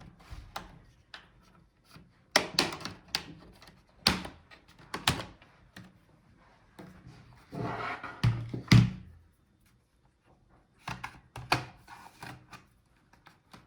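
Plastic bottom cover of a Dell G15 5535 laptop being pried off its palmrest with a plastic pry tool: a run of sharp clicks and snaps as the edge clips release, with a couple of louder knocks partway through.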